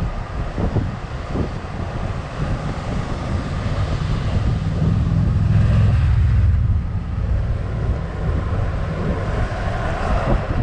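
Wind buffeting the microphone of a camera riding on a moving Jeep Rubicon, over the vehicle's engine and road noise. The rumble swells to its heaviest about five to six seconds in.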